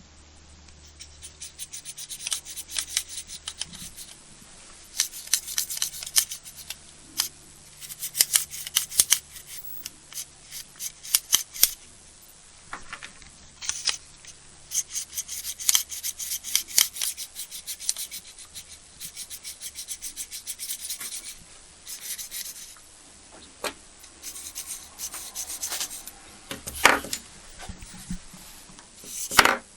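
Hand work on hard parts: irregular runs of quick rubbing and scraping strokes, with a few sharper knocks near the end.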